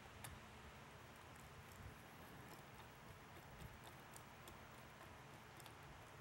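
Near silence, with faint, scattered light ticks of a hand screwdriver turning a small screw into the beacon's die-cast metal base.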